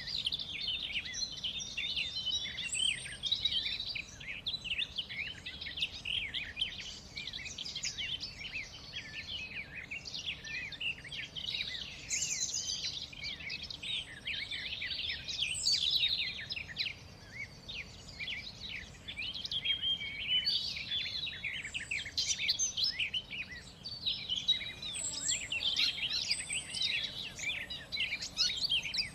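Many birds singing and chirping at once in a dense, continuous dawn-chorus-like mix of quick, overlapping calls, with a couple of brief lulls.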